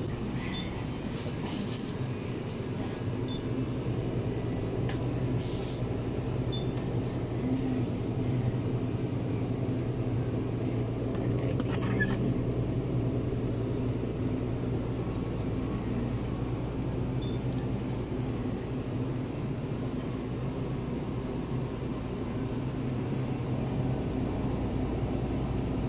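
Supermarket ambience: a steady low machine hum from the store's refrigerated display cases and ventilation, with faint background voices and a few light clicks and rustles of plastic packaging being handled.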